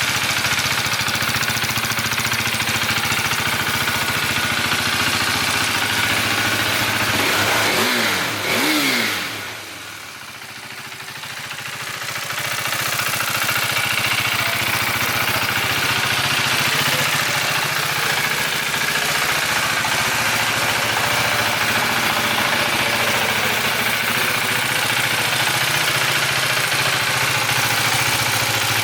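KTM Duke 390's single-cylinder engine idling steadily, with two quick throttle blips about eight seconds in before it settles back to idle.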